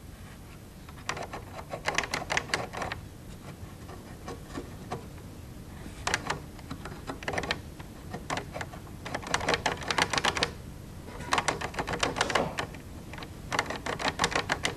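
Runs of rapid mechanical clicking, about five bursts with short pauses between, from an oscilloscope's lever switches being flicked back and forth while their contacts are cleaned.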